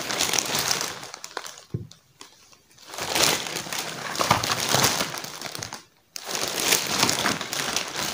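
Plastic courier bag rustling and crinkling as items are pulled out of it by hand. The rustling dies down for about a second around two seconds in and cuts out abruptly for a moment near six seconds.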